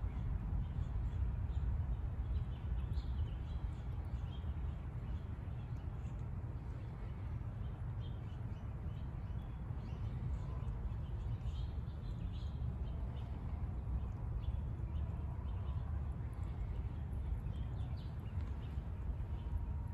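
Mallard ducklings peeping faintly and irregularly, short high calls scattered throughout, over a steady low rumble.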